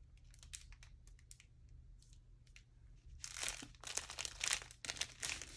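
Plastic packaging of a diamond painting kit being handled: a few faint ticks and rustles, then a burst of crinkling from about three seconds in.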